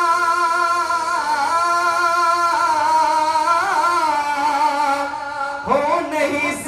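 A man singing a naat, holding one long drawn-out note that wavers in an ornament around the middle. Near the end he slides up into a new phrase.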